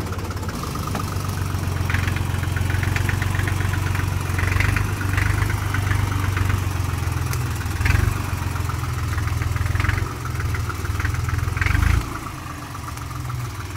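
Fendt Farmer 2 tractor's diesel engine running as the tractor moves at low speed. The engine note swells briefly three times, and it runs quieter after the last swell.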